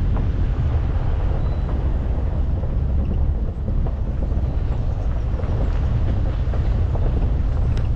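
A Dacia Duster on the move: a steady low rumble of engine and road noise, with a few faint light clicks.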